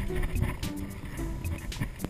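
Background music with a steady stepping melody, over the low rattle of a mountain bike rolling down a rocky trail, with a couple of sharp knocks as the wheels hit rocks.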